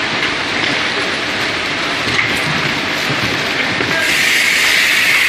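Automatic carton tape sealer running, its drive belts pulling a cardboard carton through over roller conveyors, amid steady factory machine noise. About four seconds in, a louder, brighter rushing noise sets in as the carton passes through the sealer.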